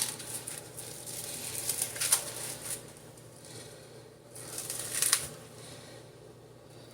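Plastic food packaging rustling and crinkling as it is handled, with sharper crackles about two seconds and five seconds in.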